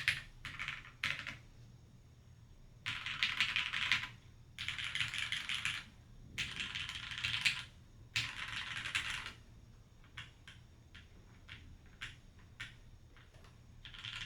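Mechanical keyboard with lubed, filmed Gateron Tangerine linear switches in a gasket-mounted aluminium-plate Keycult No.2 TKL, typed on. A few keystrokes come first, then four bursts of fast typing of a second or so each, then single, spaced key presses near the end.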